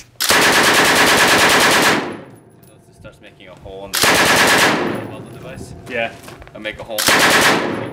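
PKM belt-fed machine gun (7.62×54mmR) firing on full auto in three bursts: a long burst of nearly two seconds, then two shorter bursts of under a second each.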